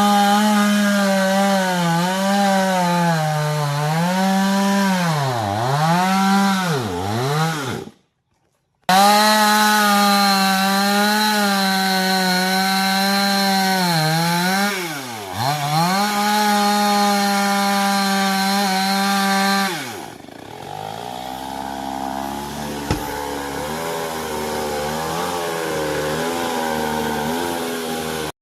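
Chainsaw running at high speed while cutting, its pitch repeatedly sagging and recovering as the chain bogs in the wood. About two-thirds of the way through it drops to a lower, uneven idle.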